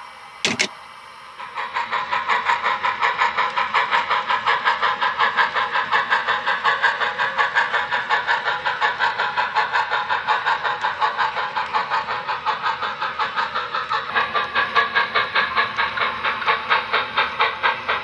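Telephone handset hung on its hook with a short clunk about half a second in. Then the sound system of an HO scale model steam locomotive starts chuffing with a steady hiss, about four chuffs a second, as the engine works its train.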